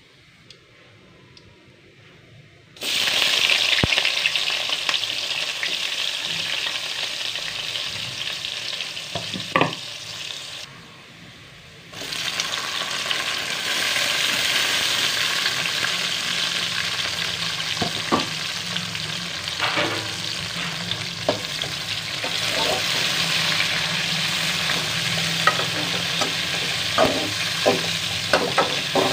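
Chopped onion and tomato frying in hot oil with cumin seeds in a metal karahi: a loud, dense sizzle that starts suddenly about three seconds in, dips briefly past the middle, then carries on. A utensil stirring in the pan adds scattered clicks and scrapes, more of them near the end.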